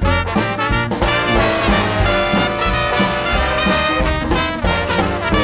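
Up-tempo swing-style music led by brass horns, with a steady beat.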